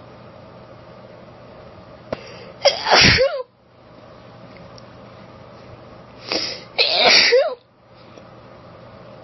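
Two forceful allergy sneezes from a woman, about four seconds apart, the second led by a short buildup breath just before it. A steady hiss of background noise runs underneath.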